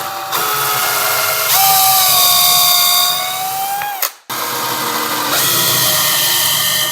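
Power drill pre-drilling pilot holes for small trim screws: a long run of motor whine that speeds up about a second and a half in and winds down about four seconds in, then a second run straight after.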